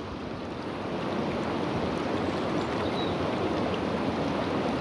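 Small river rushing over a rocky riffle: a steady noise of running water that grows a little louder about a second in.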